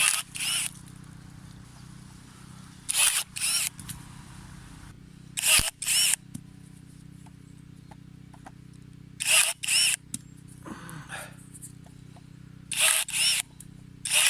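Cordless battery secateurs' small motor whirring in quick pairs, one burst as the blade closes and one as it reopens, five cuts a few seconds apart. One cut ends in a sharp snap of wood.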